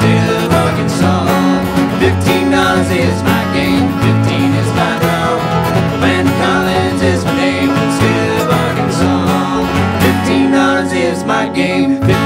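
Bluegrass band playing an instrumental break: acoustic guitars, mandolin, upright bass, banjo and dobro, with no singing.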